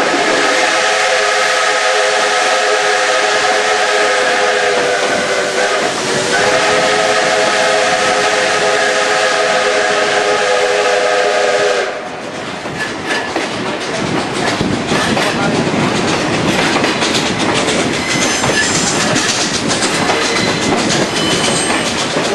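Steam whistle of the Robert Dollar No. 3 locomotive, a chord of several notes, blown in two long blasts that stop about twelve seconds in. After that, the train's wheels clickety-clack and rattle over the rails as the cars roll along.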